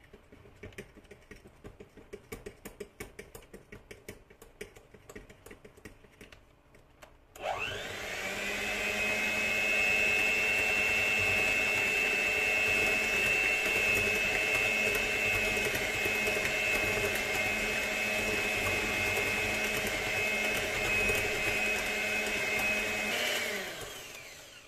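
Electric hand mixer with twin beaters starting with a rising whine about a third of the way in, then running steadily as it beats flour into cake batter, and winding down and stopping near the end. Before it starts, a run of light ticks and clicks.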